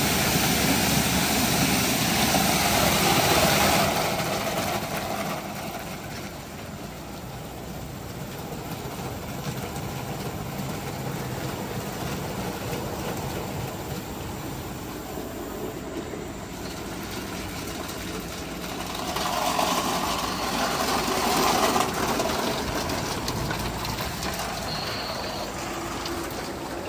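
Christ Genius Vitesse rollover car wash running over a car: a steady rush of spraying water and machinery. It is loudest for the first few seconds, drops away, then swells again about twenty seconds in.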